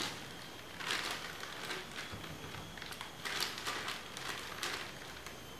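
Plastic packaging crinkling and rustling in several short bursts as a package is handled and opened by hand.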